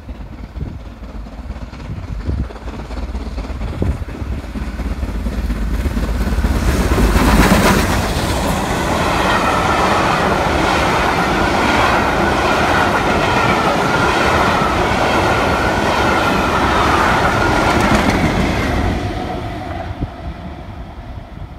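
BR Standard 'Britannia' class Pacific steam locomotive 70013 'Oliver Cromwell' approaching and passing at speed, loudest about seven seconds in. Its train of coaches then rolls past on the rails with a steady high ringing from the wheels, and the noise fades as the train draws away near the end.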